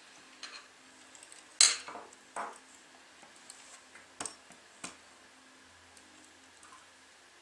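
A few sharp clicks and clinks of small hard plastic and metal parts being handled while wiring a nightlight module into a wall outlet. The loudest comes about one and a half seconds in.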